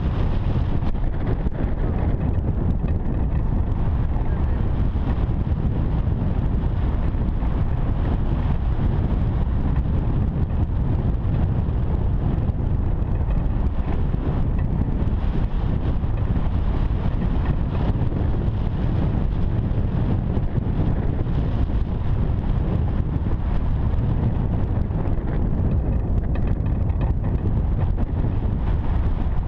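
Wind noise from a camera microphone mounted on a hang glider in flight: a steady, low rush of airflow buffeting the mic.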